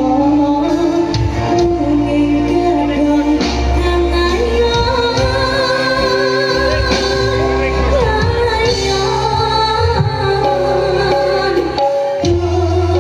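Live campursari music: a woman sings a Javanese song into a microphone, with wavering held notes, backed by a band of gamelan metallophones, drums, bass and guitars.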